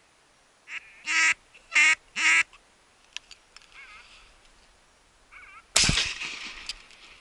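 Three loud, short duck quacks in quick succession. About three seconds later comes a single shotgun shot, the loudest sound, which echoes away over about a second.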